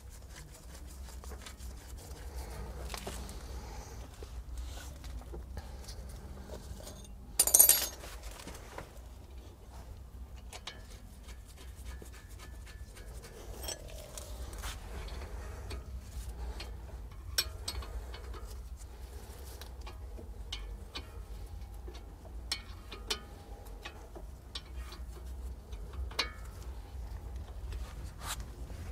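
Scattered light metallic clinks and ticks of hand tools and brake parts as a front brake caliper is refitted by hand, with one louder, brief burst of noise about seven and a half seconds in.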